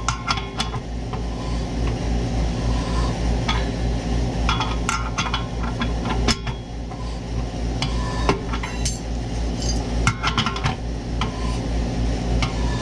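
Irregular metallic clicks and clinks of a wrench turning the draw bolt of a manual knockout punch as it is pulled through the metal wall of an electrical box to cut a larger hole, over a steady low hum.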